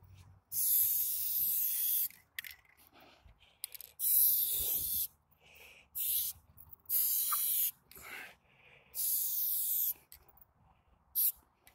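Aerosol spray paint can hissing in six separate bursts, the longest about a second and a half and the last very short, as paint lines are sprayed onto a wall.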